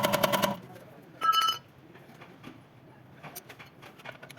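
Impact wrench hammering in a fast rattling burst that stops about half a second in. A short, high-pitched tone follows about a second later, then faint scattered clicks.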